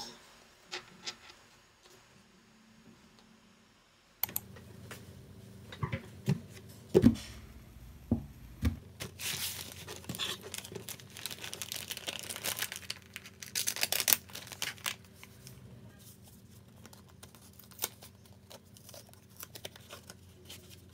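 Paper packaging being handled and torn open: crinkling and tearing, with knocks of items set down on a desk. It is nearly quiet for the first few seconds, a loud thud comes about seven seconds in, and the crinkling is densest around the middle.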